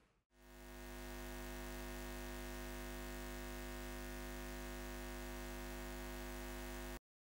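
A steady electrical hum with a low buzzing drone. It fades in over about the first second, holds at an even level, and cuts off abruptly near the end.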